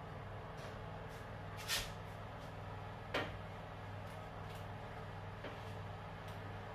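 Two sharp knocks about a second and a half apart over a steady low hum.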